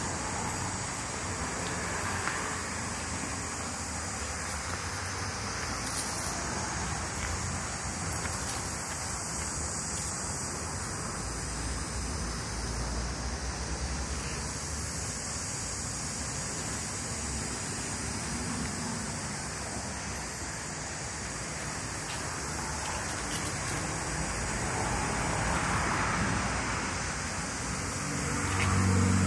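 A steady rushing noise with no distinct sounds standing out of it.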